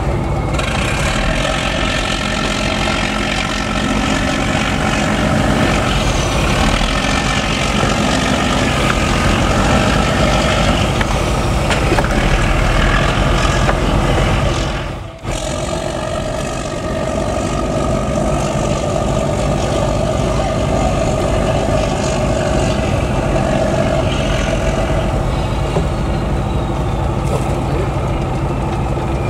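Fishing boat's inboard diesel engine running steadily as the boat manoeuvres, with a brief drop in the sound about halfway through.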